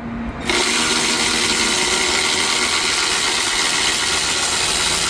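Power tool with a deep socket running steadily, loosening one of the strut's mounting nuts; it starts about half a second in.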